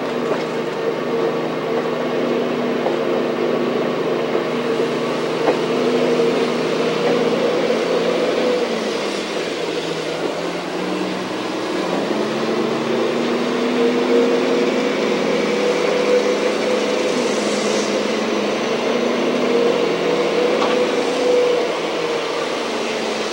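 Train in motion heard from on board: a steady running hum with engine tones that drift slowly in pitch, and a few faint clicks from the wheels on the rails.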